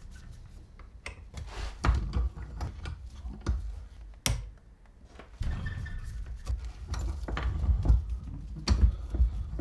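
Metal clicks and knocks of a 6 mm Allen key working the tight bolts of a Nissin brake caliper clamped in a bench vise, as the bolts are cracked loose. The sharpest click comes about four seconds in, and low thuds of the caliper being handled in the vise follow in the last few seconds.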